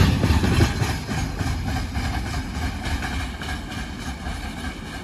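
Freight train of loaded container flat wagons rolling past on the rails. The rumble falls off within the first second, then fades steadily as the train moves away.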